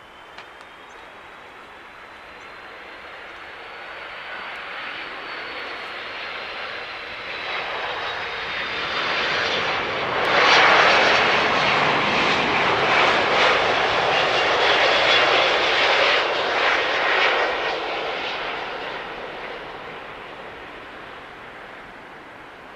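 Airbus A330-300 jet airliner with Pratt & Whitney PW4000 turbofans passing on its landing. It grows louder to a peak about ten seconds in, rumbles for several seconds, then fades away, with a high engine whine drifting in pitch as it approaches.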